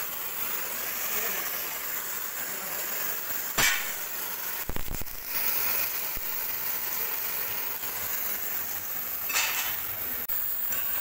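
Gas torch hissing steadily as steel plate is cut and welded, with a sharp knock about three and a half seconds in and a short clatter about a second later.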